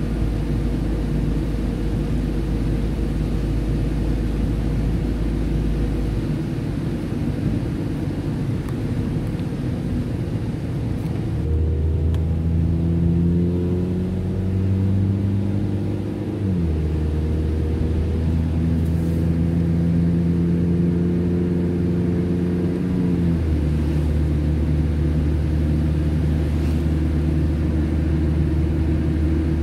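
Car driving on a slush-covered road, heard from inside the cabin: a steady hiss of the tyres through slush under the engine. The engine note rises slowly as the car gathers speed and drops sharply at two gear changes, about halfway through and again about three-quarters of the way in.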